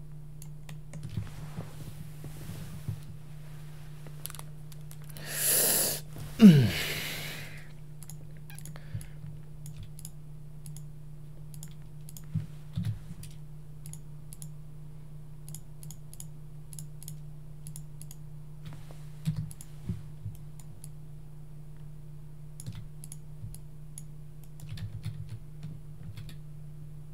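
Sparse computer keyboard and mouse clicks over a steady low electrical hum. About six seconds in there is a brief loud rush of noise followed by a short falling low sound.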